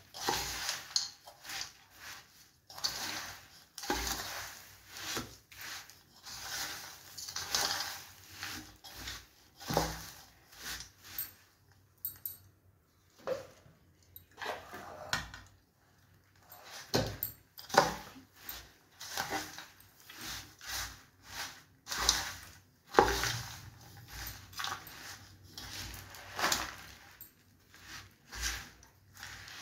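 A spoon stirring and scraping roasted sesame seeds and peanuts coated in jaggery syrup around a stainless steel bowl. The scraping strokes come irregularly, with a few sharper knocks of the spoon against the bowl, and there is a short lull partway through.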